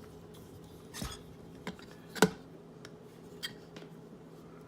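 A few separate sharp clicks and snips, the loudest a little past the middle, from cutting and scoring the soft plastic webbing inside an RC monster-truck tire.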